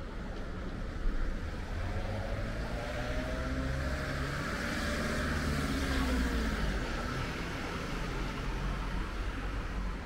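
A van driving past on the street: engine and tyre noise swell to a peak about halfway through, then the engine's pitch drops as it moves away. A short knock sounds about a second in.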